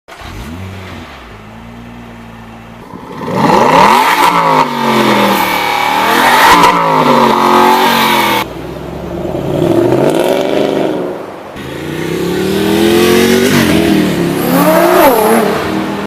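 Ferrari F430 Spyder's V8 running steadily at first, then revved hard several times from about three seconds in. Its pitch climbs and falls in repeated sweeps.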